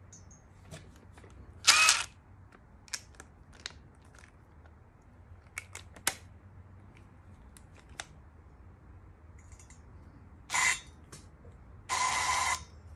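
DeWalt cordless driver spun in short bursts of under a second, the last near the end while it turns a valve-lapping stick on an engine valve to lap it into its seat. A loud short whir comes about two seconds in, and there are scattered clicks and knocks of the socket, extension and tools being handled.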